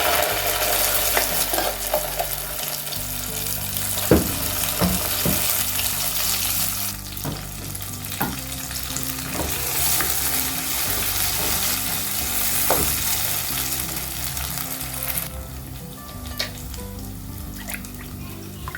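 A wet ground paste sizzling hard in hot oil with whole spices in a pan, with a spoon clicking against the pan as it is stirred. The sizzle eases off near the end.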